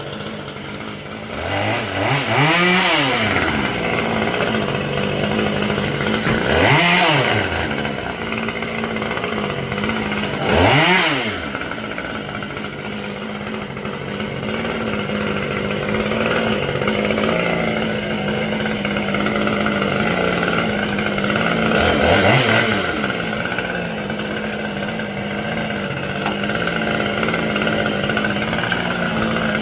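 Two-stroke chainsaw revving up and dropping back four times as cuts are made, with a steady engine drone underneath.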